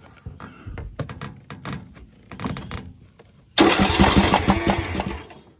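MTD riding lawnmower's small engine cranked by its electric starter: after some light knocks and handling noise, a loud, evenly pulsing cranking sound starts suddenly about three and a half seconds in, runs for under two seconds, then stops.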